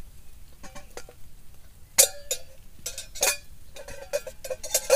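Metal cookware and utensils clinking and knocking, each strike ringing briefly. The loudest clink comes about two seconds in, then a quick run of light taps near the end.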